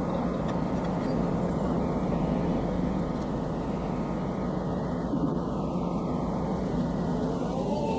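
A truck's diesel engine runs steadily, with a brief rise and fall in pitch near the end.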